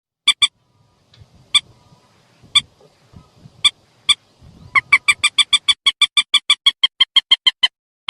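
Recorded call of a mandar, a rail or moorhen, played as a bird-hunting lure: short, sharp, identical notes, first one or two at a time about a second apart, then from about five seconds in a fast even run of about eight notes a second.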